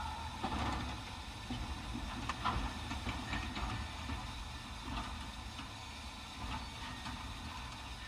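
Steam locomotive recording played back through a car's factory-fitted speakers: a quieter stretch of low, uneven rumbling with a few faint clanks.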